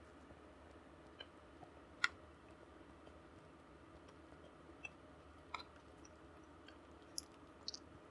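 A person eating close to the microphone: scattered short, sharp mouth clicks and smacks of chewing over faint steady background noise, the sharpest about two seconds in.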